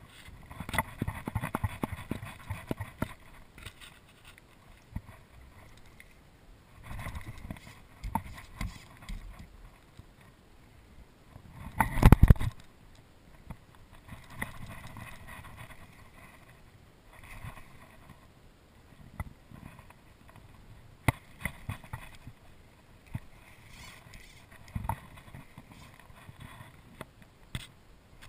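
Irregular knocks, taps and rustles of gear on a kayak, picked up through the hull-mounted camera, with a single loud bump about twelve seconds in.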